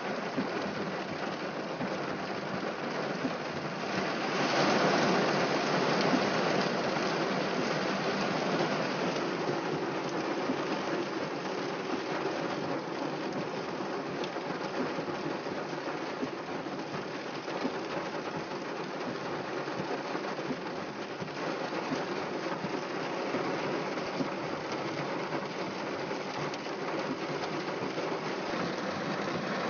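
Heavy rain falling on a car's windshield and body, heard from inside the car. The rain swells louder about four seconds in, then settles to a steady hiss after about nine seconds.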